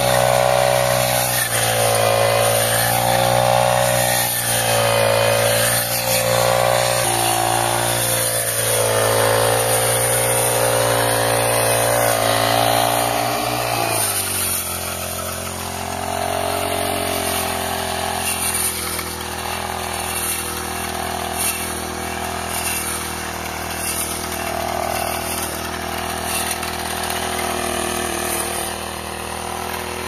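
Petrol brush cutter engine running at high revs while mowing alfalfa, its pitch wavering with the load. About halfway through it drops to a lower, quieter, steadier running speed.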